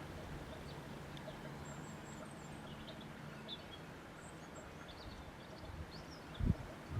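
Outdoor ambience with small birds chirping faintly now and then over a steady background hush. A faint low hum, like a distant engine, runs through the first half, and two short low thumps come near the end.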